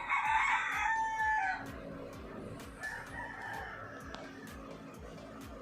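A rooster crowing: one long call that falls in pitch at its end, followed about three seconds in by a fainter call, over background music with a steady beat.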